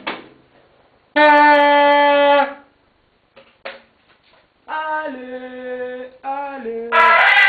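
Toy horn noisemaker blowing a buzzy, horn-like tone. It holds one steady note for over a second, then after a pause plays a few notes stepping down in pitch, and near the end several tones sound together, louder and denser.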